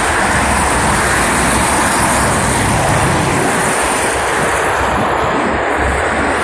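Steady road traffic noise from a wide multi-lane avenue, cars and buses passing, with a low rumble that eases about two-thirds of the way through.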